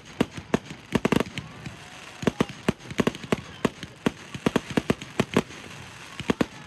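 Aerial fireworks shells bursting in quick succession, sharp bangs several per second with a dense cluster about a second in.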